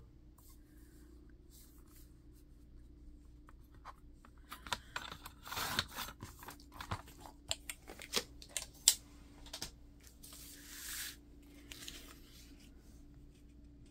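Paper being handled and cut by hand: scattered rustles and sharp clicks begin about four seconds in, with one longer rustle near the end, over a faint steady hum.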